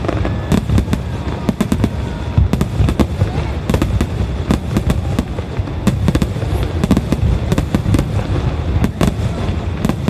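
Starmine fireworks display: a dense, continuous barrage of shells bursting, many sharp bangs in quick, irregular succession.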